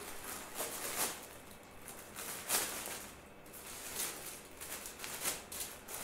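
Clear plastic roasting bag crinkling and rustling in short bursts as a knife slits it open over baked eggplant.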